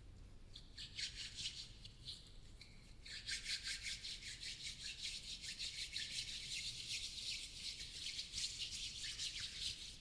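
Close-miked ASMR rubbing and scratching, a fast rasping run of strokes. It is light and broken for the first few seconds, then continuous from about three seconds in.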